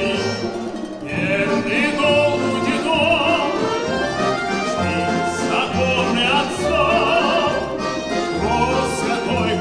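A male singer sings in a full, operatic style with strong vibrato, accompanied by an ensemble of plucked folk string instruments, balalaikas and domras.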